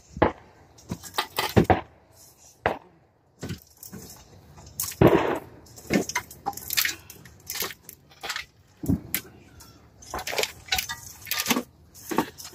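Hand tools clanking and clicking against metal on an engine slung from a hoist chain, in irregular sharp knocks and clatter, as the engine is worked loose for removal.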